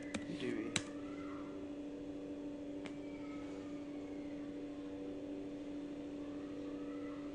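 Two computer keyboard keystrokes in the first second, typing the last letter of a command and pressing Enter, and one faint click about three seconds in, over a steady electrical or fan hum.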